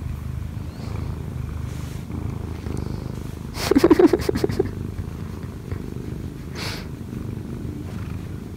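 Munchkin cat purring steadily, a low pulsing rumble, while it is content and being petted. About halfway through, a brief, louder, quickly wavering vocal sound breaks in over the purr.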